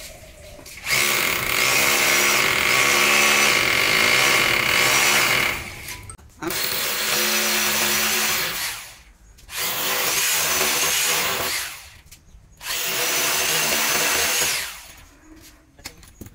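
Corded electric drill boring holes into a plastered wall, running in four bursts of about two to five seconds each with brief pauses between them.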